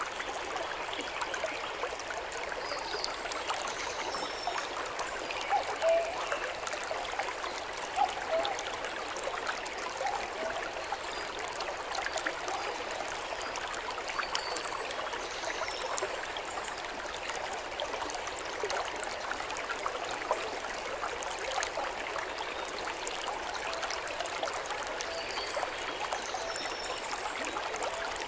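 The Oirase River, a mountain stream, with its water rushing and babbling steadily.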